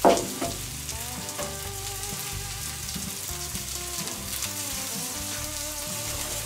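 Food sizzling and crackling in cast-iron grill pans and on a grate over hot charcoal, with a sharp metal clank at the start as a pan or bowl is set against the pan.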